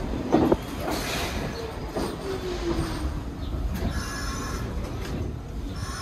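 New York City subway train running on the tracks with a steady low rumble, a brief loud squeal of wheels on the rail about half a second in, and a falling whine a couple of seconds in.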